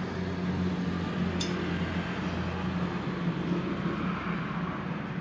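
A steady low mechanical hum, with one light metallic clink about a second and a half in.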